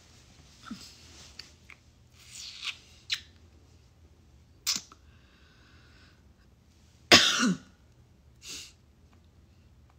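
A single short cough about seven seconds in, the loudest sound here. Around it there are faint rustles and a few sharp clicks of handling.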